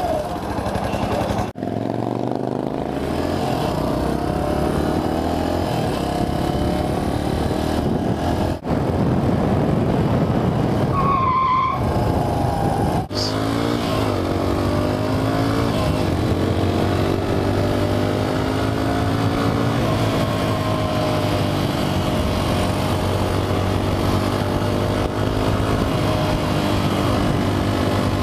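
A 2009 Q-Link XF200 supermoto's single-cylinder engine pulling away and accelerating through the gears. Its pitch climbs and then drops sharply three times in the first thirteen seconds, then the engine runs fairly steadily at cruising speed with gentle rises and falls. A brief wavering high squeal sounds about eleven seconds in.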